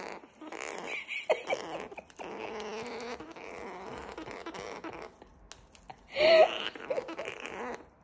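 Gang-gang cockatoo making raspy, grumbling growls in stretches of a second or two, with a louder, sharper squawk about six seconds in: the bird is agitated at the rope being waved at it.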